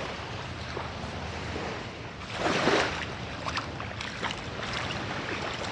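Small waves washing at a sandy shoreline with wind buffeting the microphone, a steady rushing hiss. About two and a half seconds in there is a louder rush of noise, followed by a few faint clicks.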